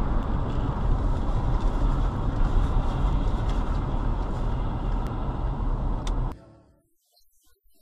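Steady road and engine noise inside a moving car on a highway, with the low rumble loudest. It cuts off suddenly a little over six seconds in.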